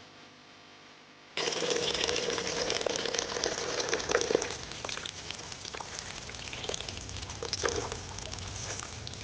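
Crinkling and crackling noise with scattered sharp clicks, starting suddenly about a second and a half in.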